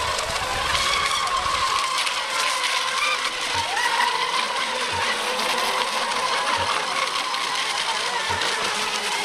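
Several electric FSR-E racing RC boats running at speed: a steady high whine of the motors and propellers over a hiss of spray.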